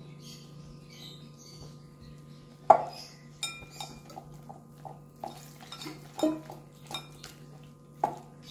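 Bangles clinking against a glass mixing bowl while flour batter is mixed by hand: irregular clinks with a short ring, the loudest about three seconds in.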